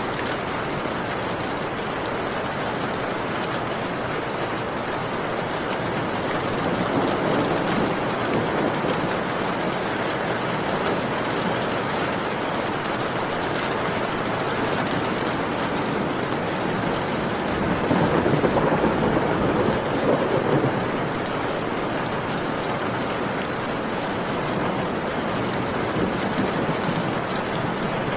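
Steady rain falling, with two low rolls of thunder: a softer one about seven seconds in and a louder one around eighteen to twenty seconds in.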